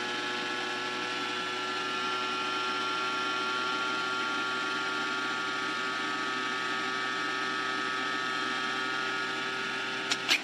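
Small electric vacuum pump of a cordless mason jar vacuum sealer running steadily, its pitch sinking slightly, then cutting off with two sharp clicks near the end.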